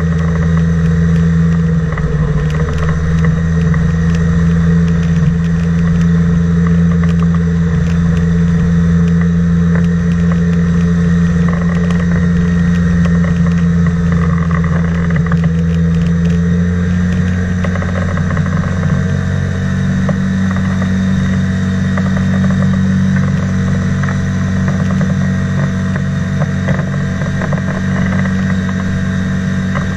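Engine and propeller of a flying boat (microlight wing over an inflatable hull) running steadily as it skims across the water. Its pitch rises a little about two-thirds of the way through.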